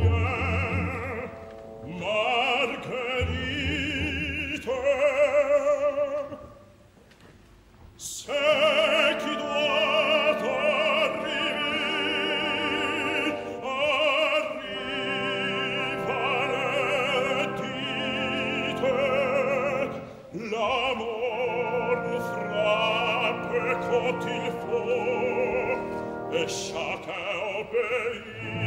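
Operatic singing with orchestra in a live stage performance: voices with wide vibrato over the orchestra. The sound drops almost to a hush about seven seconds in, then the voices and orchestra come back in full ensemble.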